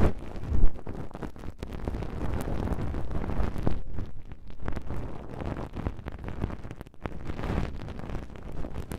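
Ear-cleaning rod rubbing and scratching against the ear of an ASMR microphone, giving close, scratchy rustling with soft low thumps and a louder bump about half a second in.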